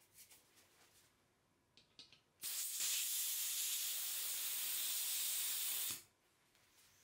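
Pressurised airsoft gas hissing out of a valve in one steady rush of about three and a half seconds that starts and stops abruptly, after a few light clicks.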